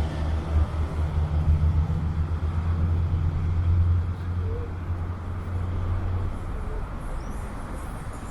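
A motor vehicle's engine running close by with a steady low hum, fading away about six seconds in, over street noise.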